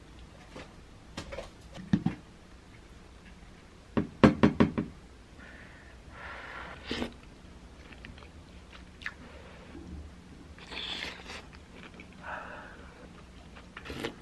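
Dishes and utensils handled at a table: a few scattered clicks, then a quick run of about five hard knocks a little past four seconds in, the loudest sound, followed by softer scraping noises of utensils in bowls.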